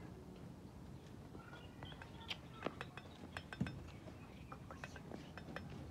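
Dishes and utensils clinking and tapping lightly: scattered small clicks, a few with a brief ring.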